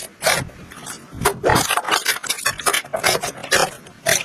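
Slime being squished and poked by hand: short squishing and crackling bursts, several a second at an uneven pace.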